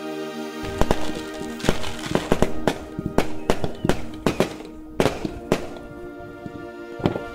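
Fireworks going off: a rapid run of sharp bangs starting just under a second in, thinning out after about five seconds. Steady background music plays underneath.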